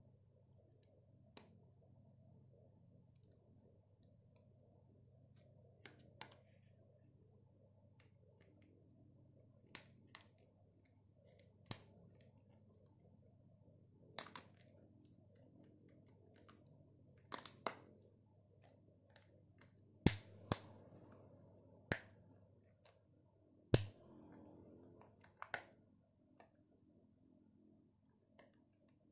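Irregular sharp plastic clicks and taps as a small plastic cup's lid is pried at with a plastic tool and worked loose by hand, the clicks coming more often and louder in the last third.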